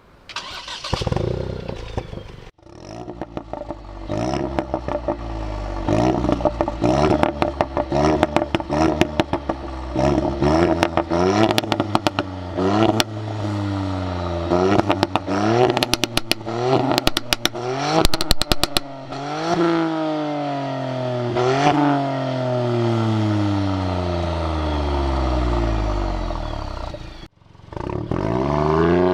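Ford Fiesta ST's three-cylinder turbo engine accelerating hard, its pitch climbing and dropping again at each gear change. Bursts of exhaust pops and crackles come in the middle, and a long falling note follows as the car slows.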